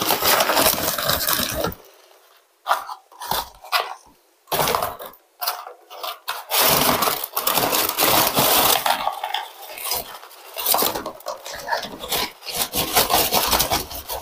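Paper takeout bag crinkling and rustling in irregular bursts as it is handled and a paper fries carton is pulled out of it, with a couple of short pauses in the first few seconds.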